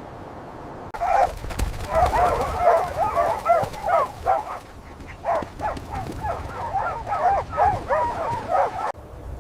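A rapid string of short, high animal calls, each rising and falling in pitch and coming several to a second. They start abruptly about a second in and cut off abruptly near the end.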